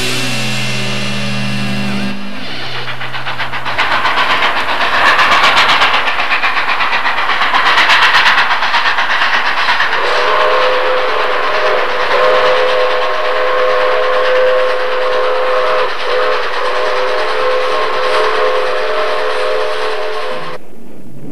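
A rushing noise with a fast rhythmic clatter, then a long steady whistle chord held for about ten seconds that cuts off suddenly near the end.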